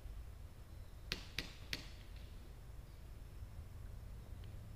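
Mostly quiet, with three faint sharp clicks a little over a second in, about a third of a second apart.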